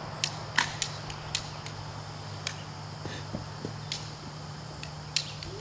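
Sharp, irregular clicks and ticks, about a dozen, over a steady low hum.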